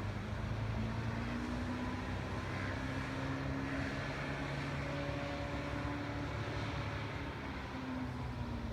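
Engine of a 1973 Reinell motorboat running under way, its pitch rising about a second in, holding steady, then dropping near the end, over a steady hiss.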